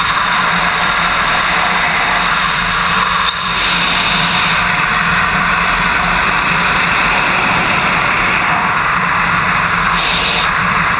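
Loud, steady rush of freefall wind buffeting the microphone of a wingsuit flyer's body-mounted camera, with a brief dip a little over three seconds in.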